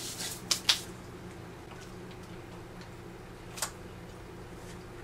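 Countertop toaster oven heating with a steady low hum, with two sharp clicks about half a second in and one more later as its controls are handled.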